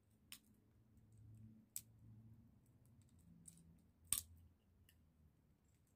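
A few sharp clicks of sunflower seed shells being cracked open between the teeth, the loudest about four seconds in, over a faint low room hum.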